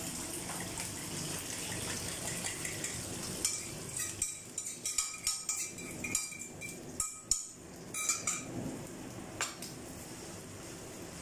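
Beaten egg and shrimp sizzling steadily in a hot non-stick frying pan. From about three and a half seconds in, a run of sharp ringing clinks and scrapes as a utensil works the last of the egg out of the bowl and into the pan, easing off near the end.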